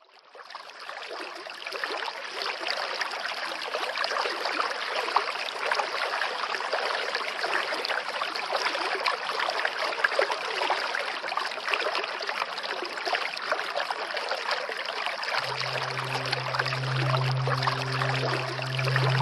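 Steady running water, an even rushing noise that fades in over the first couple of seconds. Music with low held notes comes back in about three-quarters of the way through.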